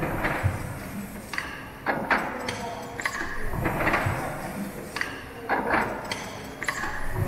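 Horizontal steam pumping engine running slowly, its rods moving. It makes a regular rush of noise with knocks, repeating about every two seconds, in a large hall.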